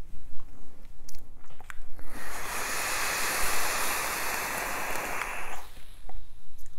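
A long draw on a vape mod: a steady hiss of air pulled through the atomiser as the coil fires, lasting about three and a half seconds, with a few small clicks before it.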